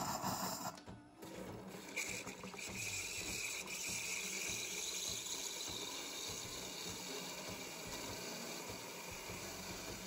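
Siemens EQ.300 bean-to-cup coffee machine frothing milk in the glass through its steam milk nozzle. A brief machine buzz at the start gives way, about two seconds in, to a steady, not loud hiss of steam bubbling into the milk.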